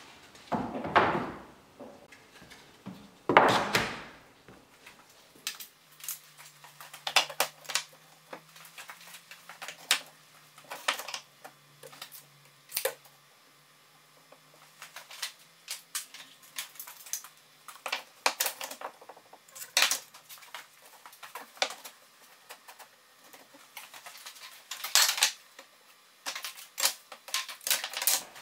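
Thin wooden slats clattering and clicking against one another and a chipboard worktop as they are handled and stacked, in many short, irregular knocks. Two longer, louder scraping sounds come in the first few seconds.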